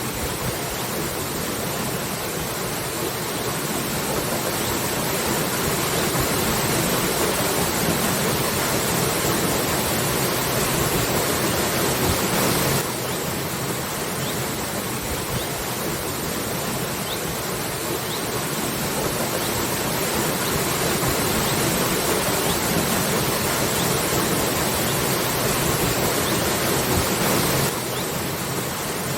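Waterfall: a steady rush of falling water. The level drops suddenly twice, about halfway through and near the end, then swells slowly back up.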